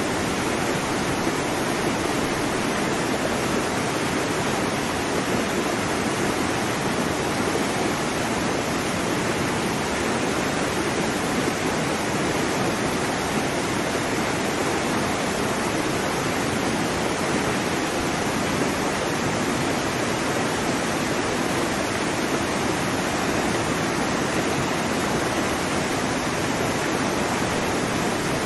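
Steady, even rush of water noise with no rise and fall of separate waves and no breaks.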